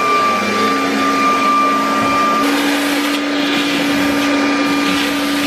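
Vacuum cleaner running steadily, a loud rushing noise with a motor whine; its pitch shifts slightly upward about halfway through.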